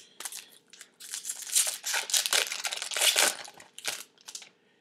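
Trading-card pack wrapper crinkling and tearing as it is opened by hand, in a run of crackling rustles over a couple of seconds.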